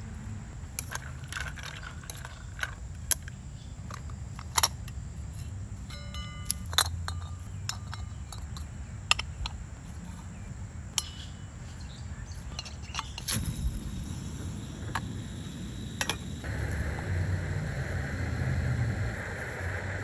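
Metal clinks, taps and light scrapes of a small canister gas stove being handled and fitted to its fuel canister. There is a sudden louder sound a little past the middle. In the last few seconds a steady hiss comes from the lit stove burning under the pot.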